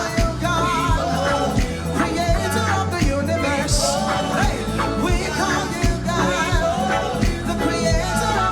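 Live gospel praise-and-worship music: voices singing over a band with bass and a steady drum beat.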